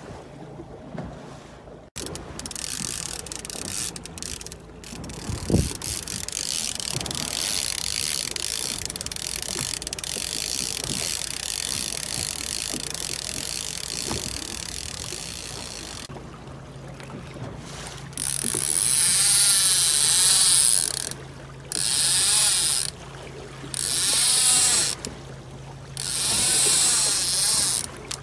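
A trolling reel's drag buzzing in four bursts of one to three seconds as a hooked fish pulls line off, over a steady low boat hum. Before that, wind and water rush, with one thump.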